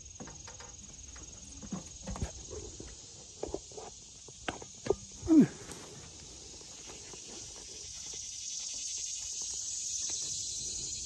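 Footsteps on grass and a few sharp knocks from handling around a stacked clay pipe, the loudest a short scrape falling in pitch about five seconds in. A steady high-pitched insect drone runs underneath and grows louder near the end.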